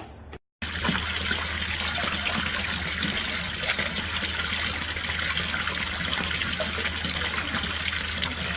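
Steady rushing of running water, like a tap left on, starting after a brief break about half a second in, over a low steady hum.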